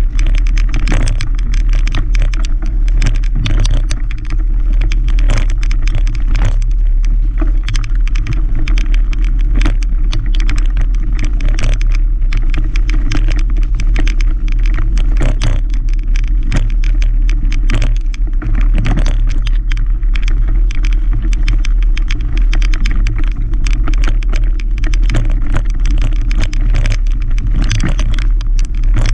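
Mountain bike riding over a dirt singletrack trail, heard close up from the riding camera: a steady low rumble with constant irregular rattling and clicking as the bike jolts over the rough ground.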